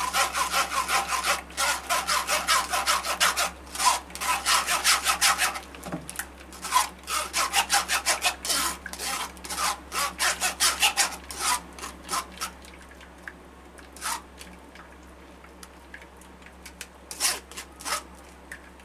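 Metal spoon scraping against a stainless-steel mesh strainer in quick repeated strokes, pressing blended watermelon pulp through to strain off the juice. The strokes are fast and dense for about the first six seconds, then space out, and after about twelve seconds only a few scattered scrapes remain.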